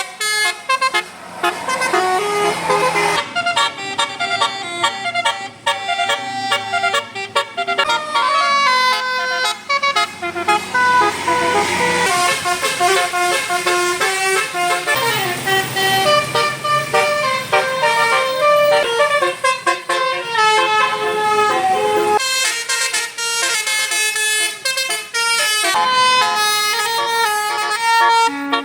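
Telolet basuri musical bus horn playing tunes: a run of sustained horn notes that step from pitch to pitch, several tones sounding together, changing abruptly about 3, 12 and 22 seconds in.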